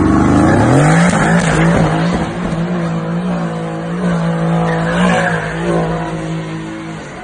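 Mercedes-AMG GT V8 revving up about half a second in and then held at steady high revs while the car spins donuts, its rear tyres squealing and skidding.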